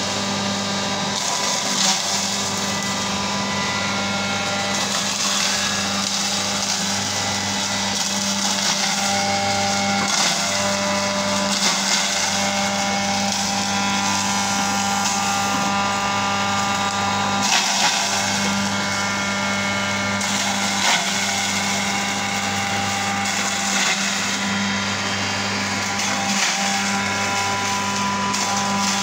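A 3 HP commercial gravy machine running steadily with a constant electric-motor hum as whole onions are pushed down its feed hole with a wooden pusher and ground to paste. A few brief knocks stand out.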